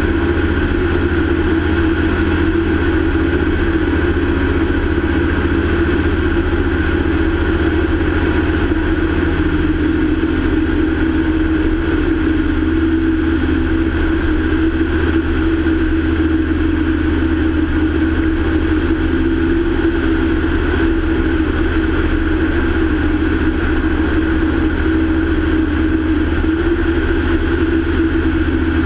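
Single-engine light aircraft's engine and propeller running steadily in cruise, an even drone whose pitch shifts slightly about ten seconds in.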